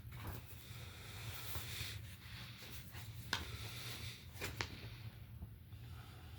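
Art prints being handled: soft paper rustling, then a few sharp crinkles or clicks about three and a half and four and a half seconds in.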